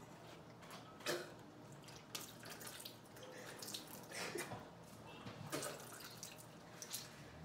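A mouth being rinsed with water from a plastic bottle over a plastic bowl: quiet splashes and drips of water into the bowl, irregularly, every second or so.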